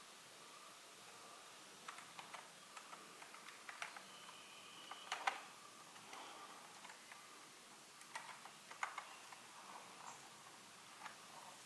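Keys being pressed on a Logitech G213 Prodigy membrane gaming keyboard: faint, irregular clicks, with a louder keystroke about five seconds in and another near nine seconds.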